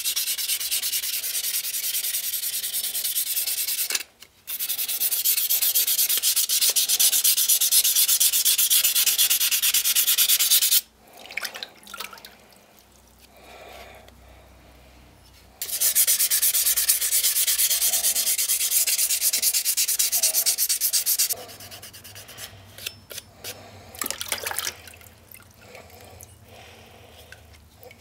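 Hand scrubbing the etched surface of a feather Damascus hatchet head in a bucket of liquid to clear the etch residue and bring out the pattern. It comes as three long spells of a loud, fast rubbing hiss, with quieter wet handling and small splashes between them.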